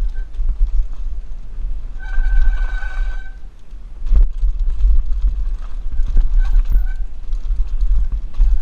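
Mongoose Pinn'r mountain bike riding downhill over rough trail: wind rumbling on the helmet-mounted microphone, with rattles and knocks from the bike over bumps. A high, steady buzz from the rear hub's freewheel comes while coasting, about two seconds in and again around six seconds in.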